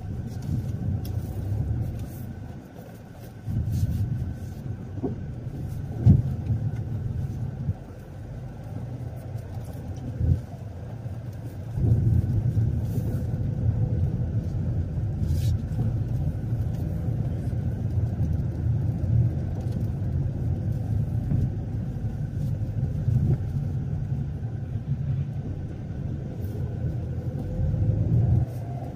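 Low, steady rumble of a car driving, steadier from about twelve seconds in, with a sharp knock about six seconds in and another about ten seconds in.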